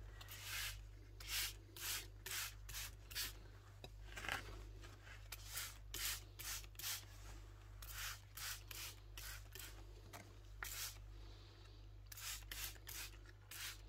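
Green plastic trigger spray bottle squirting onto houseplant leaves: many short, hissy squirts in quick irregular runs of about two or three a second, over a steady low hum.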